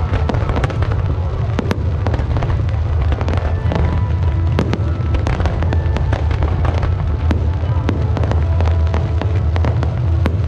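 Fireworks display: a dense barrage of shells bursting in quick succession, many sharp bangs and crackles over a continuous low rumble.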